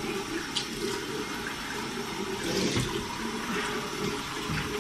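Water running steadily from a bathroom sink tap, with a few soft knocks.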